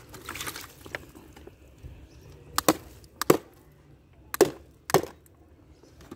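Four sharp knocks of a hard object, in two pairs: the first pair a little after two seconds in, the second about a second later.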